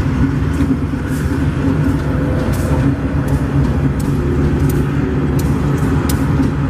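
GE AC44i diesel-electric locomotives pulling a departing freight train and passing close by, their engines running with a loud, steady low drone. Sharp clicks come at irregular intervals over the drone.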